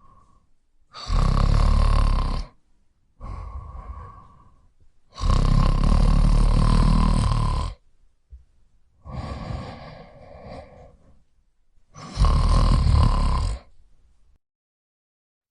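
Snoring in sleep: three long, loud snores, each a second and a half to two and a half seconds, with quieter breaths between them.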